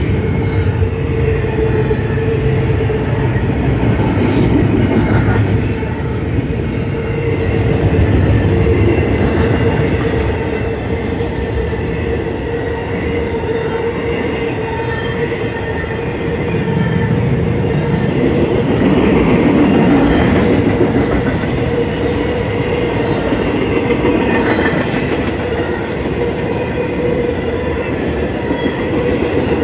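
Intermodal freight train rolling past, double-stack container cars then flatcars carrying highway trailers: steel wheels rumbling and clacking on the rails, swelling and easing as the cars go by. A steady high tone holds over the rumble.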